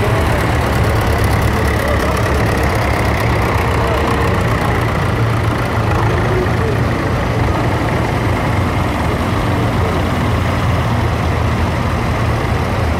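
Vintage tractor engines running steadily as a procession of old tractors drives slowly past, among them Fordsons, a David Brown and a grey Ferguson, giving a continuous low engine hum.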